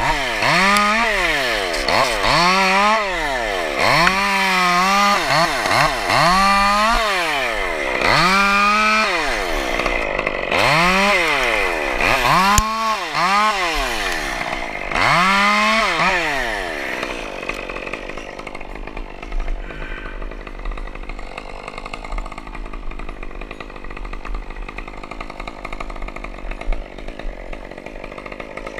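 Two-stroke chainsaw revved up and down over and over, about every one and a half seconds, as it cuts, its chain one the climber calls wicked dull. About seventeen seconds in the revving stops and only a lower, steady noise remains.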